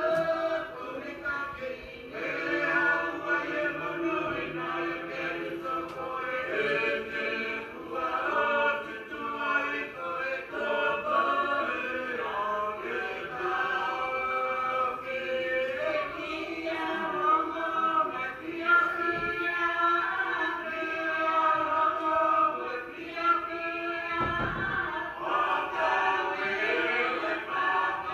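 Church choir singing a hymn in Niuean, several voices in harmony. A brief low thump comes about three-quarters of the way through.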